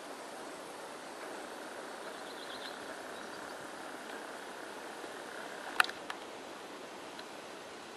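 Steady outdoor background hiss with no clear engine sound, broken by a single sharp click about six seconds in.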